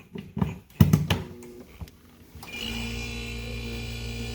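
A few knocks and clicks, then about two and a half seconds in the GE French door refrigerator's compressor starts and runs with a steady hum. It is starting on a newly fitted 3-in-1 start capacitor, after only clicking on and off with the failed one.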